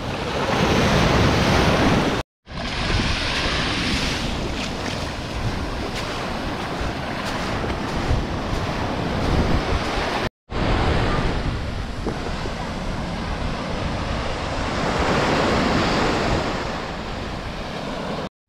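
Sea waves breaking and washing up on a sandy beach, swelling and ebbing, with wind buffeting the microphone. The sound cuts out for a split second twice.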